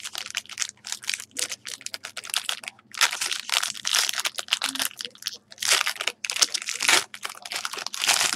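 Foil and clear plastic card-pack wrapping crinkling and being crumpled in the hands, a dense, continuous crackle with several louder rustles.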